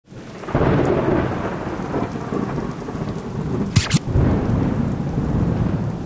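Thunder rumbling over falling rain, starting abruptly about half a second in, with two short sharp cracks just before the four-second mark.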